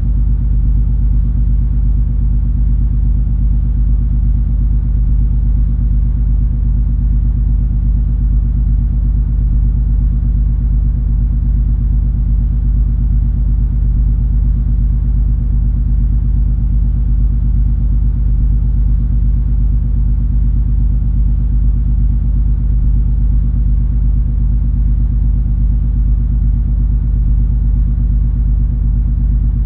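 Steady low engine and machinery drone of the cruise ferry MS Color Fantasy under way, a deep even rumble with a constant hum and no changes.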